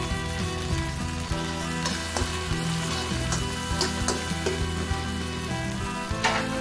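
Chopped pork, onion and tomato sizzling in a wok, with a metal spatula scraping and tapping the pan as the food is stirred.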